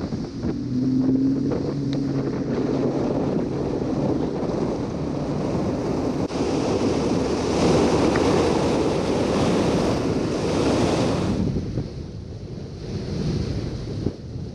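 Bass boat running fast across a choppy lake: wind buffeting the microphone and water rushing past the hull, with the outboard motor's steady hum underneath. About eleven seconds in, the rush drops away as the boat slows down.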